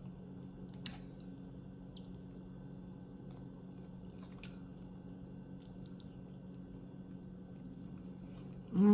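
A mouth chewing a bite of oxtail meat, with faint wet squishes and a few sharp lip-smack clicks over a steady low hum. A loud pleased "mm-hmm" comes at the very end.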